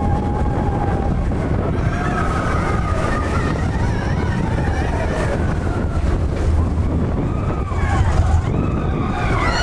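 Roller coaster mine train running along its track: a loud, steady rumble with wind rushing over the microphone. Wavering, sliding high-pitched tones come and go over the rumble, most clearly in the first half and again near the end.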